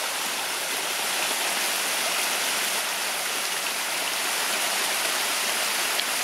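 Small waterfall: a fair trickle of water falling through undergrowth and splashing onto stones, a steady rushing splash.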